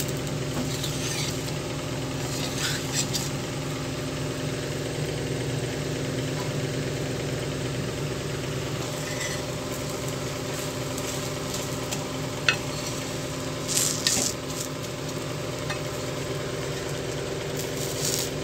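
Dosa batter sizzling on a hot cast-iron tawa, with a steady low hum underneath. About two-thirds of the way through come a few sharp scrapes and taps of a steel spatula on the pan as the dosa is folded.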